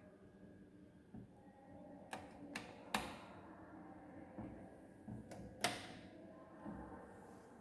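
Faint sharp clicks from the stepped resistance dial knobs of a Maxwell bridge trainer being turned while the bridge is balanced: three clicks about two to three seconds in, then two more near six seconds.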